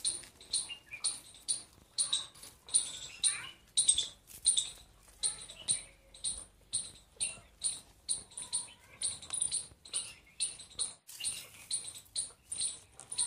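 A child's squeaky shoes squeaking with each step, short high squeaks about twice a second in a steady walking rhythm.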